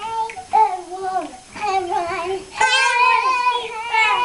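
Young children singing in high voices, a string of short held sung phrases that gets louder about two-thirds of the way through.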